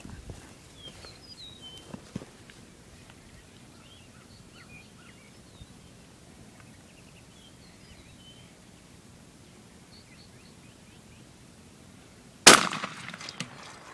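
A single shot from a 20-gauge shotgun near the end, a sharp crack followed by a brief ringing echo.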